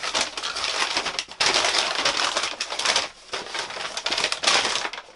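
Kraft paper wrapping rustling and crinkling as it is pulled open by hand to get at a book, a dense crackle with a short lull about three seconds in.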